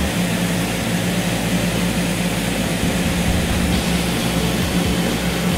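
Cessna 172 Skyhawk's piston engine and propeller running steadily in cruise, heard inside the cabin as a constant drone with a steady hum and a rush of noise above it.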